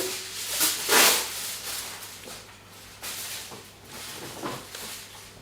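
Three-month-old baby making breathy, sputtering noises with his lower lip, the loudest about a second in and a few softer ones later, after a short coo right at the start.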